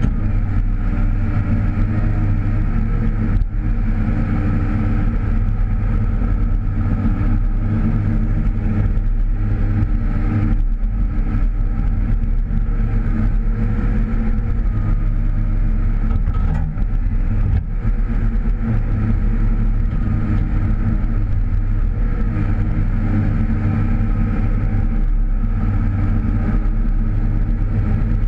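Komatsu PC308 excavator's diesel engine running steadily under hydraulic load as it digs and swings, heard from inside the cab, its pitch wavering slightly.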